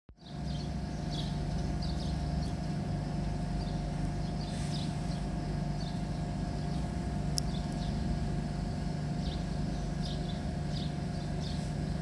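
Outdoor ambience: a steady low rumble with a faint constant hum, and small birds chirping in short calls throughout. A single brief high-pitched blip sounds about seven seconds in.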